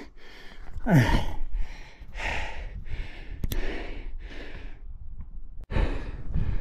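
A man breathing hard from exertion: a sigh falling in pitch about a second in, then a run of quick, heavy breaths about every half second, a short pause, and more breaths near the end.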